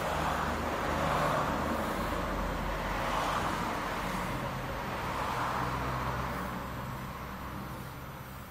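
Road traffic going by, its noise rising and fading a few times as vehicles pass.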